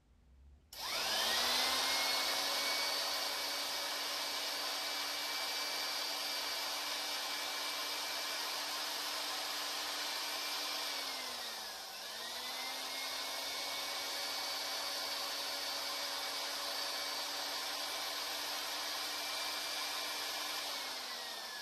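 Vintage electric drill running through a Versamatic 4400 drill speed reducer, the motor spinning up to a steady whine. About eleven seconds in it slows almost to a stop, then spins up again and runs steady until it winds down at the end.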